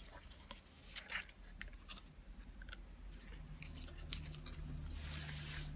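Paper and cardstock flaps of a handmade scrapbook box being opened and handled: light rustles and small paper clicks, with a longer sliding rustle of paper about five seconds in.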